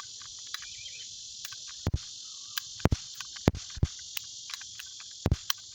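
Paper cap gun being fired over and over: a string of sharp clicks and snaps, about five of them loud, as the hammer strikes the paper cap roll. A steady high-pitched chirring runs underneath.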